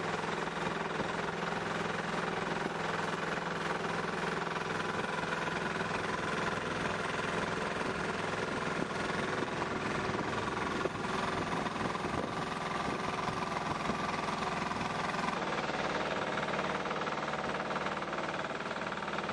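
A boat's engine running steadily at cruising speed, a constant drone with an even rush of water and wind over it.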